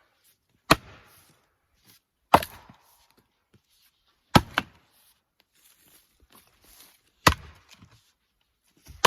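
Fiskars 28-inch axe splitting firewood rounds: four sharp strikes about two seconds apart, the third followed quickly by a second crack.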